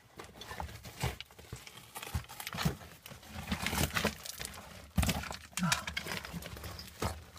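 A person crawling through a narrow rock mine tunnel: irregular knocks and scrapes of hands, knees and gear against rock and loose gravel.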